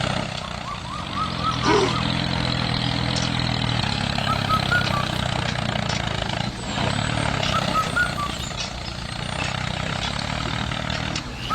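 A tractor-style engine running steadily, with brief dips in level twice, and birds chirping faintly.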